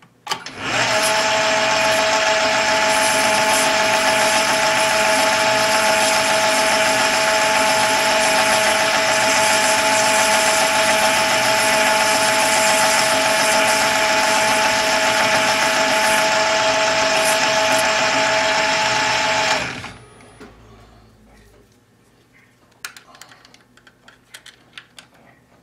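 Small metal lathe starting up and running with a steady whine for about nineteen seconds while it turns a brass crown-wheel blank, then switching off. A few light clicks follow near the end as a vernier caliper is set on the part.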